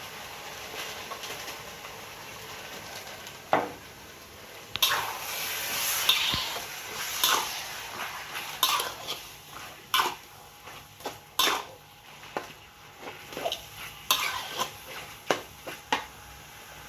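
A metal spatula scraping and clanking against a pan while food sizzles. After a quiet start and a single knock, repeated strokes come every half second or so.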